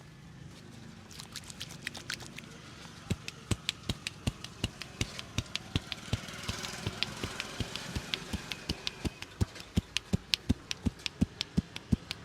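Hands striking a person's head in a barber's percussive head massage: sharp slaps, a few at first, then a steady rhythm of about three to four a second that grows louder toward the end.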